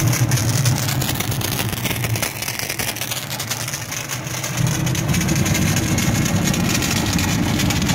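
Jenny hot-water pressure washer running, its oil-fired burner heating the water, with a steady machine hum under the hiss of the spray jet from the wand. The low hum weakens about two seconds in and comes back stronger about four and a half seconds in.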